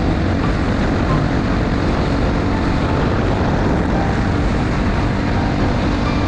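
Honda XR250 Tornado's single-cylinder four-stroke engine running steadily at cruising speed, mixed with wind noise on the microphone and tyres on gravel.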